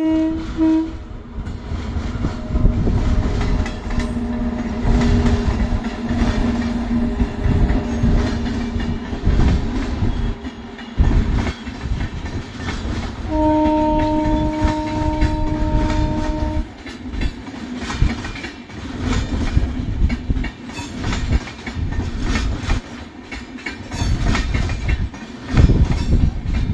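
WAG-9HC electric locomotive's horn: a short blast right at the start and a steady blast of about three seconds some 13 seconds in, over the continuous rumble and clickety-clack of a train's wheels rolling over rail joints as it moves off.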